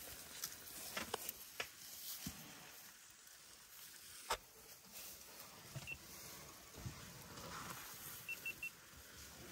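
Elephants feeding at close range: faint rustling with scattered snaps and clicks of dry vegetation, the sharpest about four seconds in. Three short high peeps come near the end.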